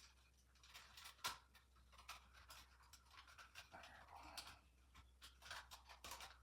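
Quiet, scattered clicks and rustles of hands handling electrical wires and fittings, with one sharper click about a second in, over a faint low hum.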